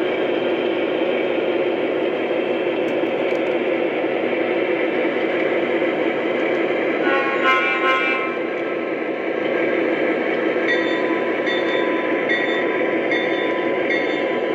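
Lionel O scale diesel locomotives running through a yard, their onboard sound systems giving a steady diesel engine rumble over the running noise of the wheels on the track. Two short horn toots sound about halfway through, and near the end a bell starts ringing, a little more than once a second.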